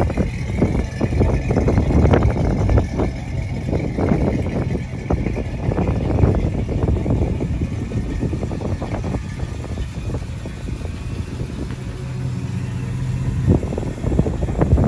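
The 350 cubic-inch V8 crate engine of a restored 1952 Ford F1 pickup running at idle, its exhaust pulsing unevenly.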